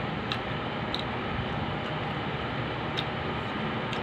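Steady background hum of room noise, with a few soft clicks from eating and handling food on a plate.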